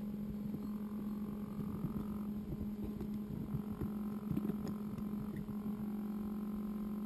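Steady low electrical hum with a faint higher whine that comes and goes, from a 1:10 FPV RC car standing still with its motor electronics switched on.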